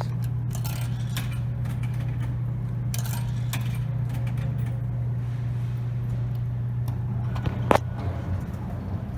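Drink vending machine humming steadily, with scattered small metallic clicks and clinks, and one sharper knock about three quarters of the way through.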